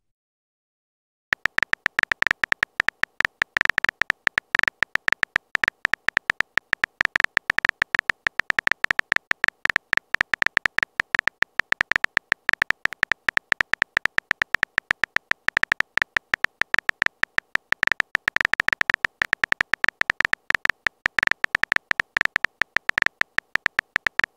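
Rapid phone-keyboard typing clicks, a sound effect of many short taps with a bright tone, starting about a second in and going on without a pause.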